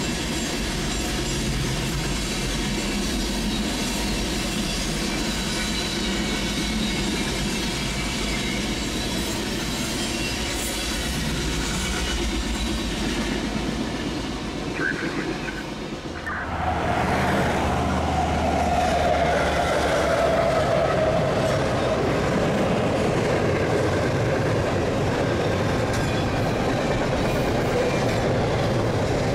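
Freight train cars rolling past on the rails until the end of the train goes by. After an abrupt change, a second freight train, a double-stack container train, rolls over the bridge overhead, a little louder and steady.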